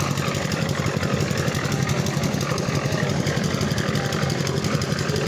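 Concrete mixer's engine running steadily with a fast, even pulse.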